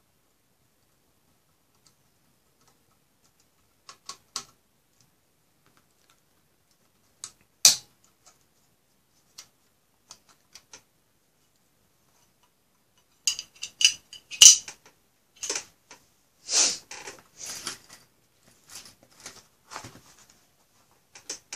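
Light clicks and clatter from handling a metal drive caddy tray with a 2.5-inch SSD fitted in it, small tools set down. The clicks are sparse at first, then come thick and fast for the last several seconds.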